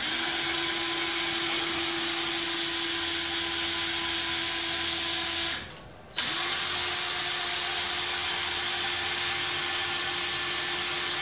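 DeWalt cordless drill running steadily at speed, spinning a 20 mm ball screw to drive the CNC gantry along its linear rails. It stops briefly about five and a half seconds in, then starts again.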